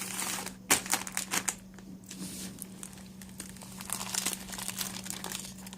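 Plastic bread wrapper crinkling and rustling as it is handled, in irregular crackly bursts. A low steady hum runs underneath.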